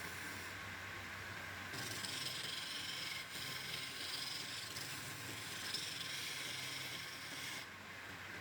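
A power tool working wood: a steady hissing cut or rub starts about two seconds in, dips briefly, and stops shortly before the end, over a constant low machine hum.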